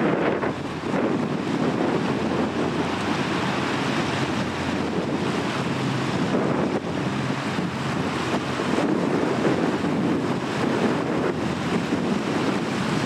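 Steady rush of wind and water: wind buffeting the microphone over the wash of a high-speed catamaran ferry moving through the water.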